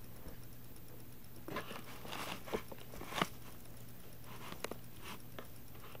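Close handling noise: rustling with a few sharp knocks and clicks, bunched in the first half and again briefly later, over a steady low hum.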